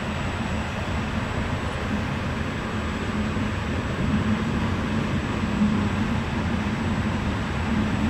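Passenger train running on the rails, heard from inside the carriage: a steady low rumble of wheels and running gear.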